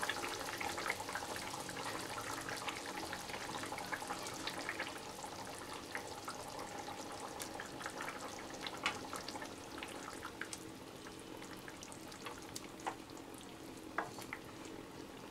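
Egg-omelette curry (dimer omlette jhol) simmering in a kadai over a gas flame: a steady faint sizzle with many small scattered pops. Near the end a wooden spatula knocks against the pan a couple of times as the omelette pieces are pushed under the gravy.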